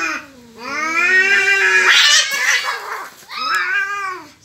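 Two tomcats caterwauling in a territorial standoff: two long, drawn-out yowls, the first turning harsher partway through, the second shorter, near the end.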